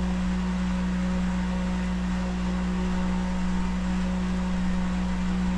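Steady mechanical hum with a strong low tone and fainter overtones, unchanging throughout.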